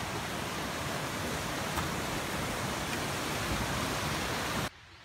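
Small mountain stream rushing over rocks, a steady wash of water noise that stops suddenly near the end.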